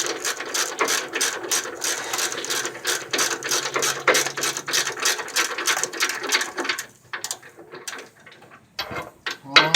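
Hand ratchet wrench clicking rapidly as the bolts on a rack-and-pinion mounting bracket are backed out. The clicking stops about seven seconds in, leaving a few separate clicks.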